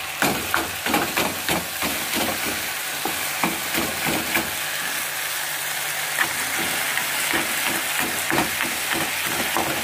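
Fried fish head, potato and eggplant sizzling in oil in a wok. A spatula scrapes and knocks against the pan in quick, irregular strokes as the fish head is pressed apart and stirred into the vegetables.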